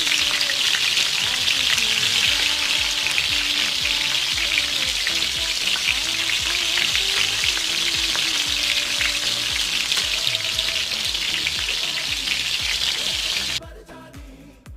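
French fries sizzling steadily as they fry in hot oil, a loud dense hiss that cuts off suddenly near the end.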